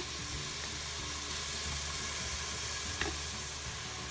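Diced onion frying in oil in an Instant Pot's inner pot on sauté mode, sizzling steadily.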